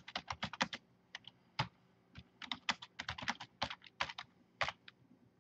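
Computer keyboard typing: quick runs of keystrokes broken by short pauses.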